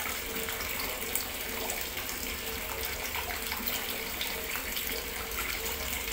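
Steady rushing background noise with a faint steady hum, and a few faint light clicks.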